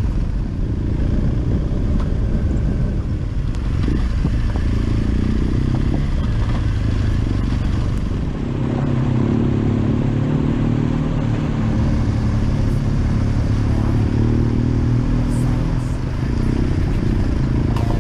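Adventure motorcycle engine running at low speed on a rough gravel mountain track, with a rough low rumble throughout; the engine note becomes steadier and stronger from about halfway.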